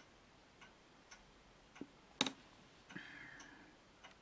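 Quiet handling of a paperback comic book being turned over: faint clicks about twice a second, a sharper tap just over two seconds in, and a brief rustle of the cover soon after.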